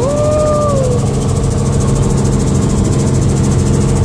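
Helicopter engine and rotor heard from inside the cabin in flight: a loud, steady drone with a rapid, even chopping beat from the rotor blades.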